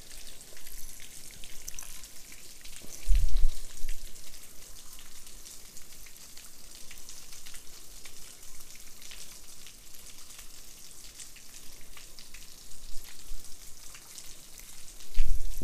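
Water rushing over a spillway: a steady hiss, with two dull low thumps, one about three seconds in and one near the end.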